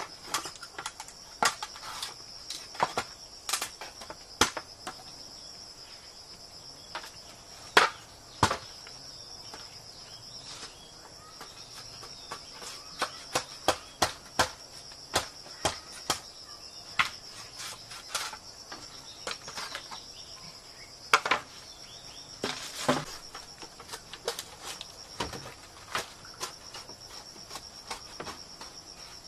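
Green bamboo poles knocking and clacking in sharp, irregular strikes as they are handled and fitted into a shelter frame, over a steady high-pitched drone of jungle insects.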